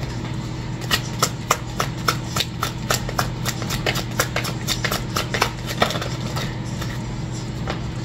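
Oracle cards being shuffled by hand: a run of quick, sharp card snaps, about four a second, for some five seconds, then only a few scattered ones near the end, over a steady low hum.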